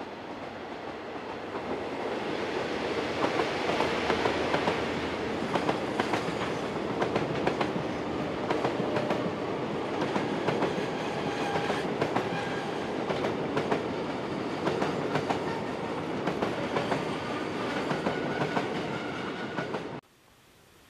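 Long container freight train rolling past, its wagon wheels clacking over rail joints in a continuous run of clicks, growing louder over the first couple of seconds. The sound cuts off suddenly near the end.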